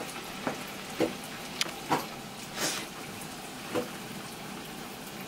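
Hot oil sizzling steadily as a masa quesadilla deep-fries in a pan, with about six short clicks and knocks from handling at the counter.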